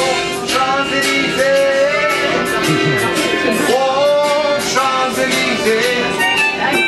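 A busker singing over keytar accompaniment: a gliding sung melody over steady held chords.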